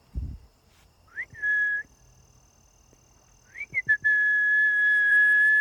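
A person whistling. About a second in comes a short note that slides up and holds briefly, then a couple of quick rising chirps. From about four seconds in she holds one long, steady high note. There is a low thump right at the start.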